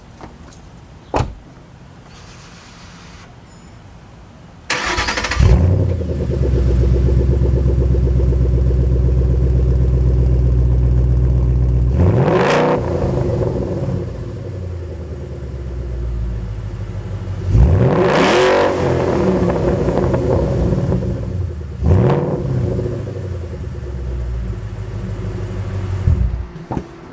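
2012 Ford Mustang GT's 5.0-litre V8 heard through a Flowmaster Hushpower 3-inch catback exhaust. It starts about five seconds in and runs at a steady, fast idle for several seconds, then settles lower. It is revved four times, the second rev the strongest, and cuts off just before the end.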